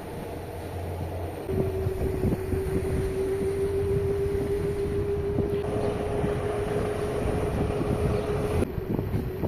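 An engine running with a steady droning tone over low rumble, cutting off abruptly near the end.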